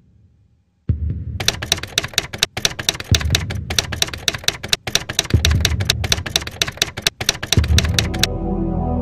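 Typewriter sound effect: a fast, dense run of key clicks with a few deep thuds underneath. Near the end the clicking stops and sustained ambient music comes in.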